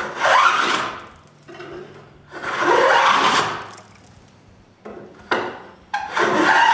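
Hand plane taking long shavings along the edge of a glued-up block of thin wood strips, truing that side straight. Three strokes of about a second each, the last one starting near the end.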